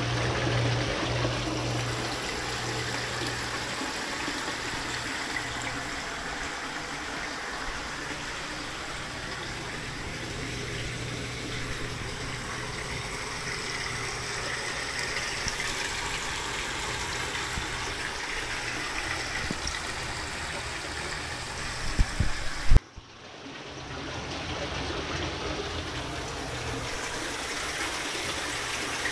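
Stream water rushing steadily. A few sharp knocks come about 22 seconds in, then the sound briefly cuts out and returns.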